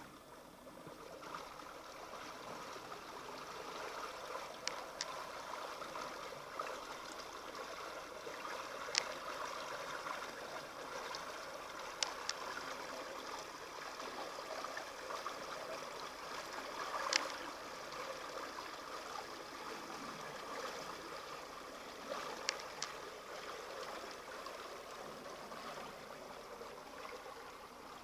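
Muddy water of a small flash-flood surge rushing and gurgling over a dry sandy creek bed, growing louder over the first few seconds and then steady. A few sharp clicks sound now and then.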